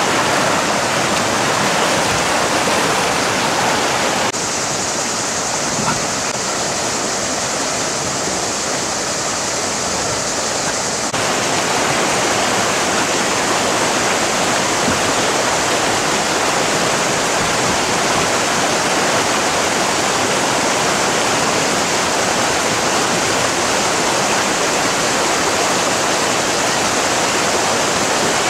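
River rapids: white water rushing over rocks and small ledges, a steady loud wash of water. It drops a little in level between about four and eleven seconds in, then returns.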